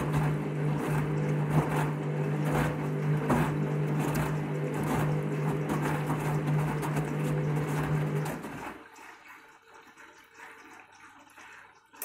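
Water rushing and splashing into the drum of a Candy front-loading washing machine as it fills for the fabric-conditioner rinse, over a steady low hum. The fill cuts off about nine seconds in, leaving it much quieter.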